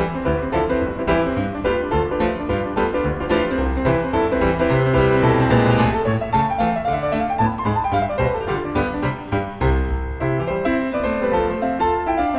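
Background piano music, a fast run of many notes.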